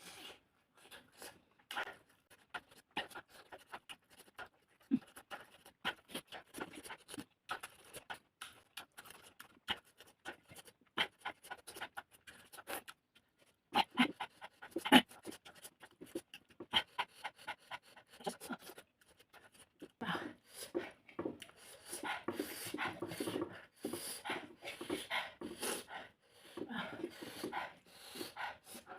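Close-miked mouth sounds of a person eating spicy fish: scattered lip-smacking and chewing clicks, then from about twenty seconds in quick, repeated panting breaths, typical of sucking air against chili heat.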